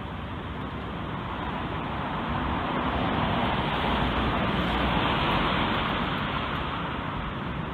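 Boeing 777-200 airliner passing low overhead, its twin jet engines a steady rush that swells to its loudest about five seconds in and then begins to fade.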